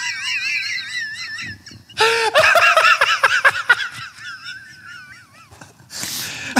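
Men laughing hard after a punchline: high-pitched, wheezing laughter that wavers up and down in two long bouts, with a breathy gasp near the end.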